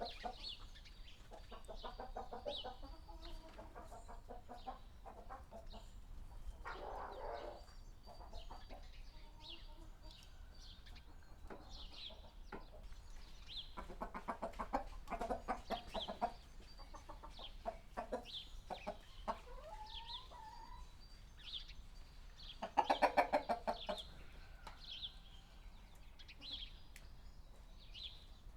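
Domestic hens clucking in irregular bursts, loudest and most rapid about three-quarters of the way through. Short high chirps recur about once a second throughout.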